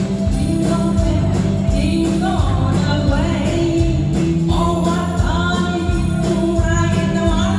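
Christmas song music played in a foxtrot rhythm, with a steady beat under held melody notes.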